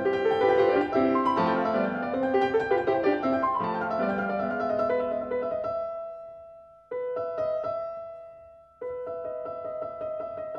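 Gentle solo piano music: flowing notes for the first few seconds, then sustained chords that fade away and are struck again twice, about 7 and 9 seconds in.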